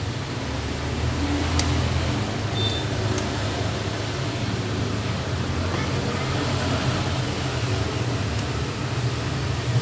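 A steady fan-like hum with a few faint light clicks.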